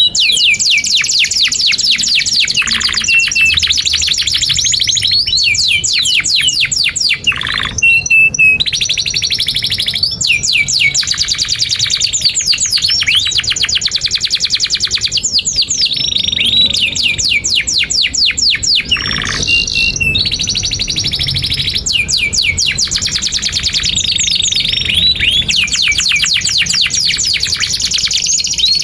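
Domestic canary singing a long, loud song of rapid trills: runs of fast repeated sweeping notes, changing phrase every few seconds, with brief breaks about 7 and 19 seconds in.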